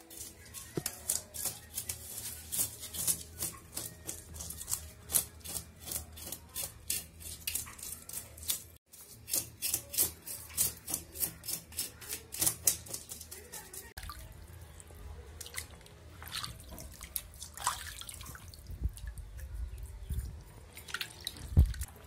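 Knife scraping the scales off whole tilapia in quick rasping strokes, about three a second. About two thirds through the strokes stop, giving way to sparse splashing as a fish is rinsed by hand in a basin of water.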